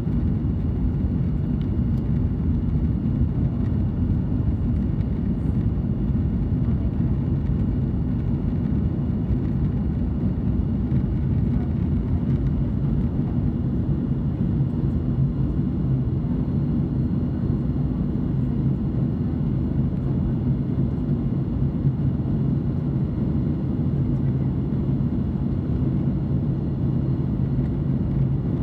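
Boeing 737 MAX 8's CFM LEAP-1B jet engines and airflow in the climb after takeoff: a steady, even drone, deep and heavy in the low end, with a faint high whine.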